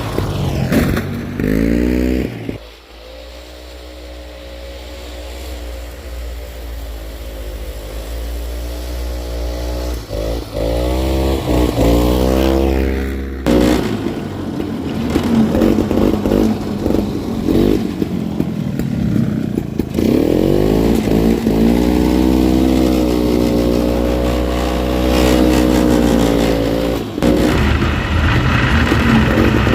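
Single-cylinder two-stroke JLO engine of a 1965 Bolens Hus-Ski 444 snowmobile running and revving, its pitch rising and falling repeatedly. The sound changes abruptly several times, around 3, 13, 20 and 27 seconds in.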